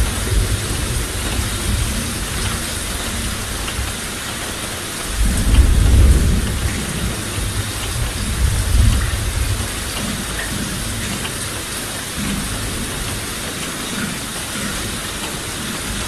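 Steady downpour of heavy rain with a continuous hiss, and rolling thunder underneath. The thunder swells loudest about five seconds in for a couple of seconds, with weaker rumbles near the start and a few seconds later.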